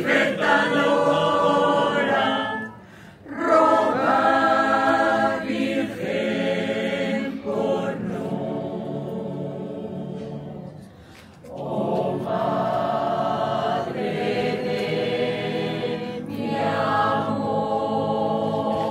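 Group of voices singing a Spanish hymn, phrase by phrase, with a short break about three seconds in and another near eleven seconds.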